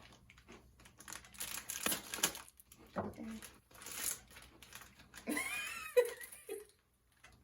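Plastic MRE ration packets crinkling and rustling as they are handled, in irregular bursts, with a brief vocal sound a little past the middle.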